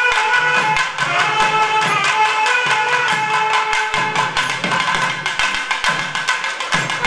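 Live Tamil folk music for karakattam dancing: a thavil barrel drum beating irregular strokes under a sustained, pitched melody line.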